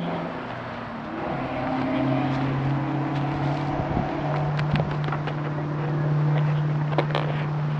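A steady low engine hum that drops slightly in pitch about a second and a half in, with a few light clicks and taps over it.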